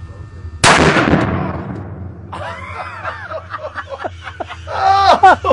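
A single loud gunshot about half a second in, with a long fading echo. Shortly after, voices cry out with sharply rising and falling pitch.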